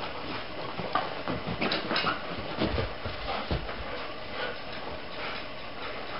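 A German Shepherd and another dog play-wrestling on a dog bed: scuffling and mouthing, with a run of short knocks and bumps from about one to three and a half seconds in.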